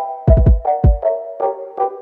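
Electronic background music: synth chords over a punchy kick drum beat.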